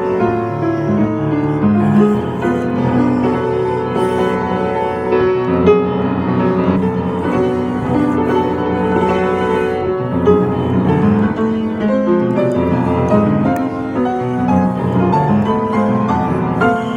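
Acoustic piano played without a break: a flowing piece with bass notes under chords and a melody above, sounding in a church.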